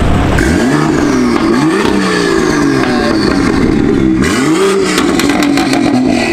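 BMW M2's turbocharged straight-six revving through a loud quad exhaust, its pitch rising and falling in several throttle blips as the car pulls away.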